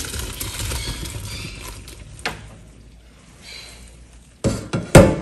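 Hydrated textured soy and its hot cooking water poured from a pot into a stainless steel colander in a sink, the water splashing and draining away and fading over about two seconds. A sharp click follows, then two loud knocks near the end.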